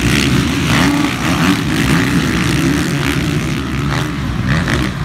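Several motocross bikes' engines revving hard together as a pack races by, their pitches rising and falling as the riders work the throttle.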